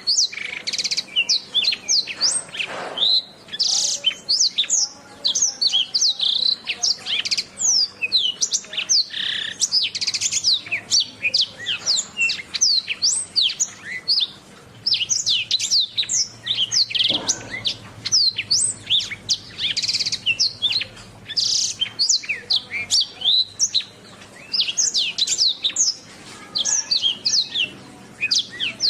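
Domestic canary singing a long, rapid song of chirps and trills, with short pauses every few seconds.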